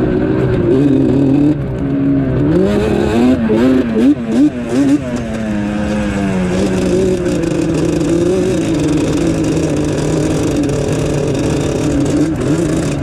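ATV engine heard from on board while riding through sand, with the throttle blipped quickly up and down several times about three to five seconds in, then held at a steadier, slightly falling pitch. Wind rushes over the microphone throughout.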